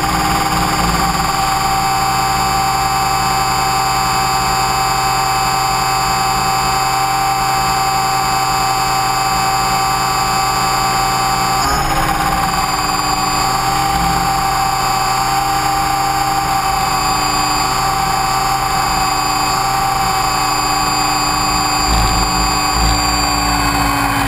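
Align T-Rex 550E electric RC helicopter heard from its onboard camera: the brushless motor and rotor keep up a steady high whine made of several tones, with a brief jump in pitch about halfway through. Near the end, as the helicopter sits down on the grass, the tones begin to fall as it winds down.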